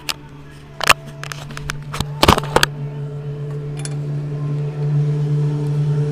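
A few sharp clicks and knocks from hand tools being handled while working on the bike, over a steady low hum that grows louder in the second half.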